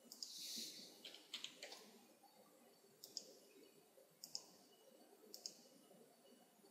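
Faint computer mouse clicks: a handful of single and paired clicks about a second apart, with a short hiss near the start.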